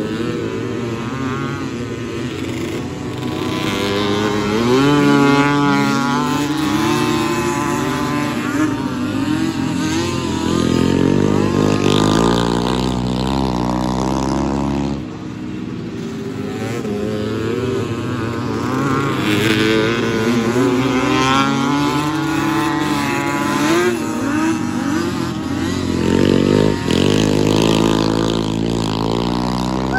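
Several two-stroke racing ATV engines revving through their gears at once, their pitch repeatedly rising and falling as the quads race around a dirt track.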